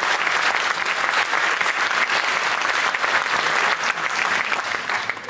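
Audience applauding, a dense steady clapping that dies away right at the end.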